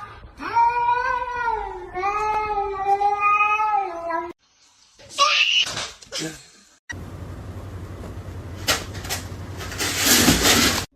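A cat yowling in two long, drawn-out, wavering meows, followed after a break by several seconds of noisy sounds with a few sharp knocks near the end.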